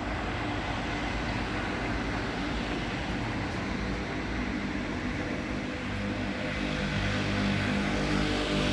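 Road traffic noise: a steady rush of passing vehicles, with an engine hum growing a little louder over the last few seconds.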